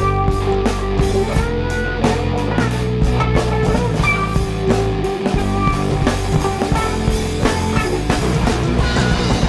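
Live rock band playing an instrumental passage: electric guitars holding long notes over a full drum kit, with the drums striking steadily throughout.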